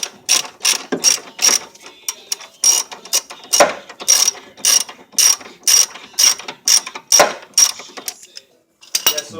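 Hand ratchet wrench clicking in a steady rhythm, about two and a half clicks a second, as bolts are tightened, with a short pause about two seconds in and the clicking stopping near the end.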